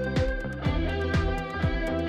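Background music with a steady beat: a low drum thump about twice a second under held instrument tones.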